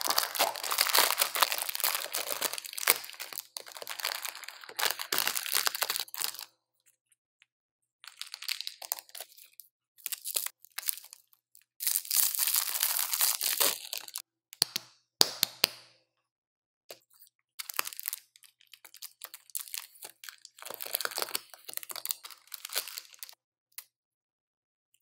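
Plastic and foil candy wrappers crinkling and crackling in the hands as sweets are unwrapped: a biscuit cup, a lollipop's cellophane wrapper and a Kit Kat's foil wrapper. It comes in several bursts of rustling with short silent gaps between them.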